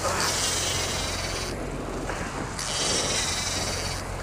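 Fishing reel drag buzzing in repeated surges of about a second and a half as a hooked fish takes line, over a steady low hum.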